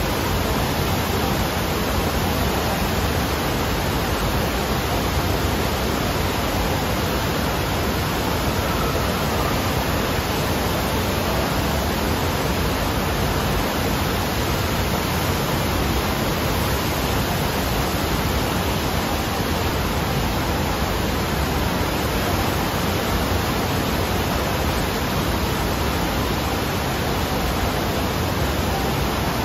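Steady rush of water pumped up the slope of an indoor sheet-wave surf machine, a loud, even roar with no breaks.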